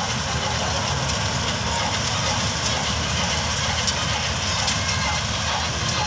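Steady, unchanging diesel engine noise of farm machinery running: a tractor standing close by and a Dasmesh 9100 combine harvester working the field.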